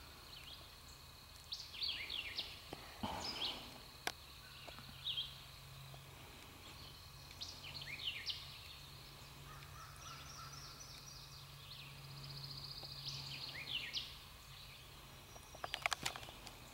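Birds chirping in short calls over a steady low hum. There is a brief noisy burst about three seconds in, and a quick run of clicks near the end.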